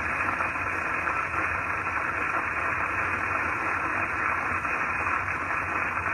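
Steady hiss of static-like noise with a faint low hum underneath, unchanging throughout.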